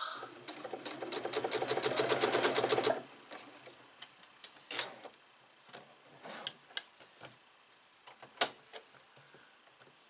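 Electric sewing machine stitching along a zipper: a rapid run of needle strokes that speeds up and grows louder for about three seconds, then stops abruptly. After that come scattered light clicks and taps, one sharper click near the end.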